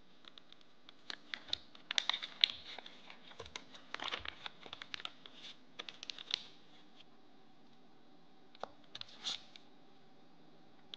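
Foil-lined butter wrapper crinkling and crackling as it is peeled open from a block of butter, in a quick run of crackles for the first six seconds or so. After a pause, a short scrape near the end as a knife cuts into the butter.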